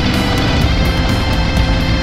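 Loud background music with a steady beat: sustained, wavering melodic lines over drums and cymbals.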